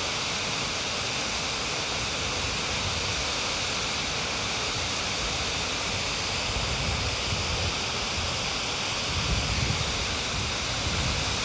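Waterfall pouring steadily: a constant rush of falling water, with a few stronger low rumbles about two-thirds of the way in.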